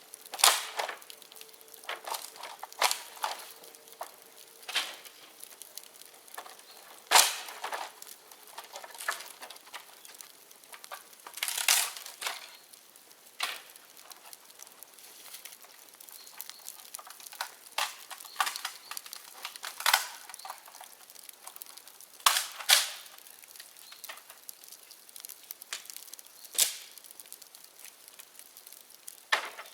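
Bonfire of dry bamboo burning, crackling with irregular sharp pops, about half a dozen of them much louder than the rest.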